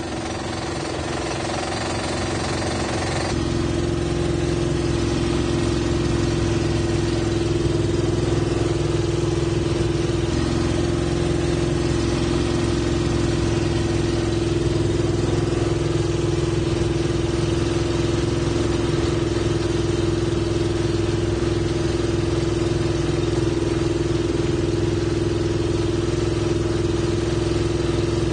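A Club Car utility cart's modified internal combustion engine running on hydrogen, a steady engine hum as the cart drives. It grows louder over the first few seconds, then holds even.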